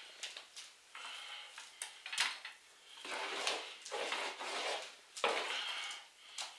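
A hand tool scraping and clinking against a container: a few sharp clinks, then two longer scrapes about three and five seconds in.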